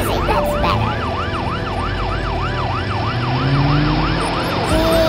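Siren sounding in a fast yelp, its pitch rising and falling about three times a second, over a steady low rumble.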